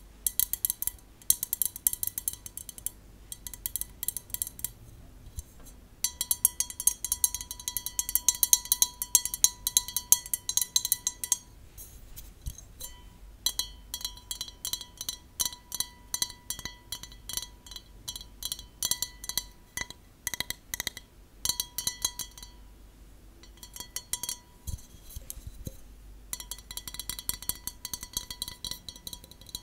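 Long fingernails tapping fast on a clear drinking glass: dense clicking with the glass ringing clearly. The taps come in quick runs broken by short pauses.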